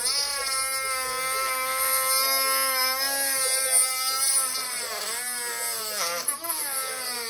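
Handheld rotary tool running at high speed, grinding into the plastic housing of a Ryobi 18V cordless tool. It gives a steady high whine that rises just after the start, then sags and recovers several times in the last couple of seconds as the bit bites into the plastic.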